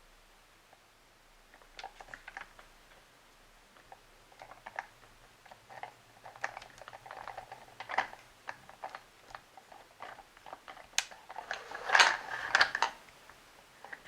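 Hands handling a plastic toy playset: scattered small clicks and taps of plastic parts, growing busier and louder toward the end.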